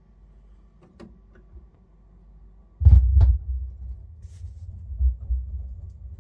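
Low, throbbing bass rumble opening a rock recording: faint hum and a few clicks, then two heavy low thumps about three seconds in and a pulsing low drone that carries on until the band comes in.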